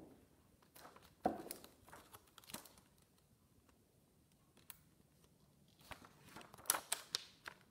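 Scattered light knocks and brief rustles as a person gets up and moves about a small room; the loudest come about a second in and again near the end.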